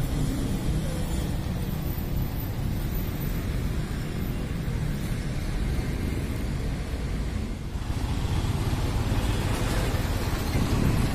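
Steady road traffic: the engines and tyres of passing vehicles, including a heavy truck and a coach. It dips briefly about eight seconds in.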